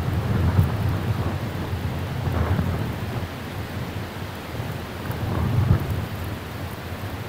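Strong gusty wind buffeting the microphone: a low rumble that swells about half a second in and again about five and a half seconds in.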